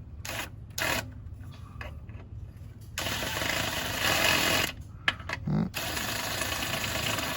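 Socket ratchet wrench turning fasteners: a couple of short clicks, then two long runs of fast ratcheting rattle.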